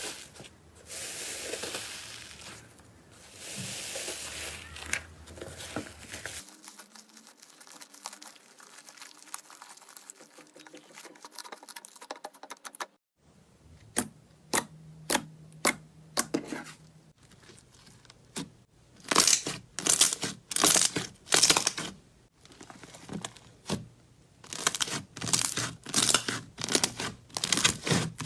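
Slime being squeezed and stretched by hand, crackling and popping. The first half is a soft rustling squish; from about halfway it breaks into runs of sharp pops and clicks, quickest near the end.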